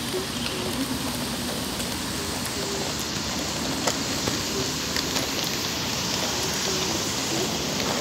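Steady rain hiss with scattered ticks of drops, over wet ground.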